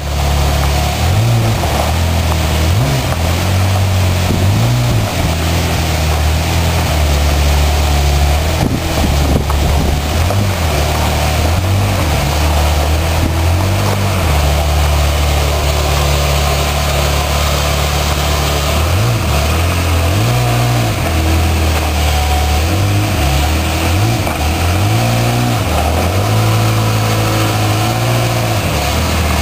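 Ferrari F355's V8 idling with repeated short throttle blips that raise the revs and let them fall back, as the car pulls away at low speed.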